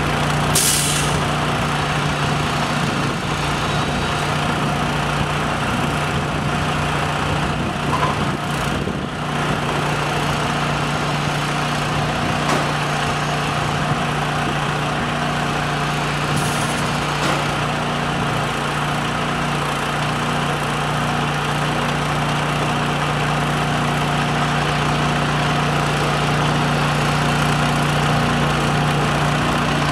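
Engine running steadily at an even speed, with a constant low hum, while the self-erecting jig is raised. Two brief hisses sound over it, one just after the start and one about halfway.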